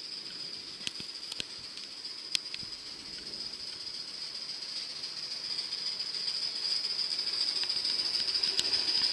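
Gauge 1 live steam model locomotive (Pennsylvania E6s) running past with its train: a steady steam hiss that grows louder as it approaches, with a few sharp clicks.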